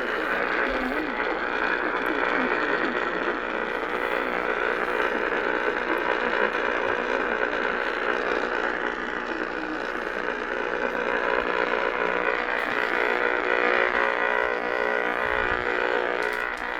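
Emergency Alert System two-tone attention signal heard over AM radio, a steady unbroken tone with a buzzy edge, announcing a flash flood warning.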